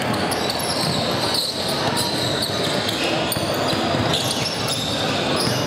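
Gym noise during a basketball game: a basketball bouncing on the hardwood floor, sneakers on the court, and indistinct spectators' voices, echoing in the large gym. A few short high squeaks come through in the second half.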